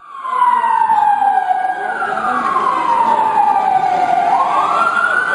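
Siren wailing: one slow downward sweep in pitch over about four seconds, then rising again near the end.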